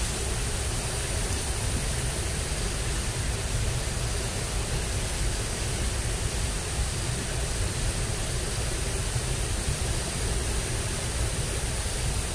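Steady rushing of water flowing in a drainage ditch, an even noise that does not change.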